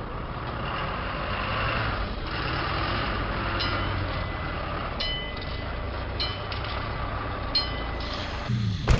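Steady rumble of vehicle noise. Four short, high electronic beeps come about a second or so apart in the second half, and a sharp knock comes near the end.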